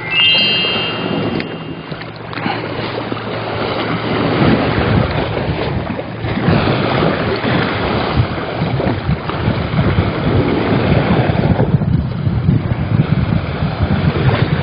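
Wind buffeting the microphone, with sea waves washing against the rocks. A brief high whine sounds in the first second or so.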